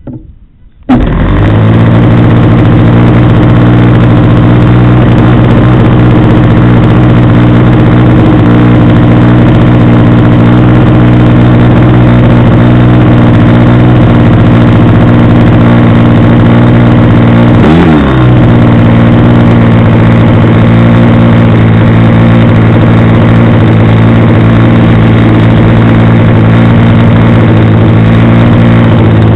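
Small RC model-airplane engine starting up about a second in and then running steadily, very loud close to the microphone, with a brief dip and recovery in speed about two-thirds of the way through.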